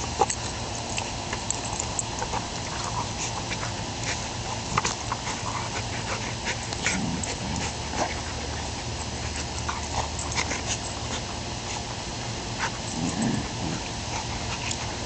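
A corgi and a golden retriever play-fighting, with short low growls about halfway through and again near the end, over scattered scuffling clicks.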